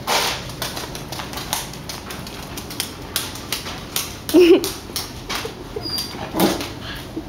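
A small dog's booted paws tapping and scuffing on a tile floor as it walks, an irregular patter of clicks. A short voiced sound about four seconds in is the loudest moment.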